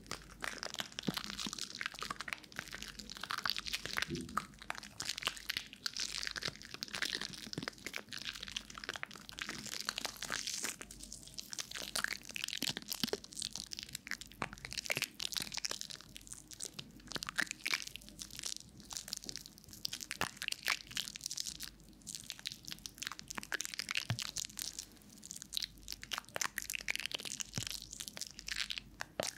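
Soapy, lathered hands rubbing and squishing together close to a binaural microphone, making a dense, wet crackle of popping foam bubbles that never lets up.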